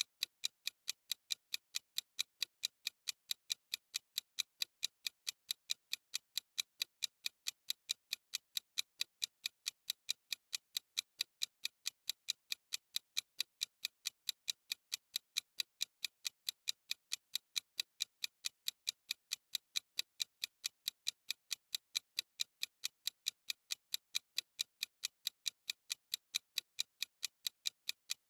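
Clock-style ticking of a countdown timer sound effect: crisp, evenly spaced ticks, several a second, keeping a steady beat.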